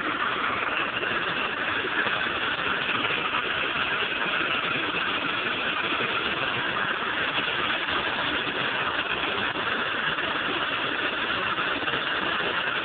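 Handheld gas torch burning with a steady hiss, its flame held on a copper pipe fitting to heat the joint for soldering.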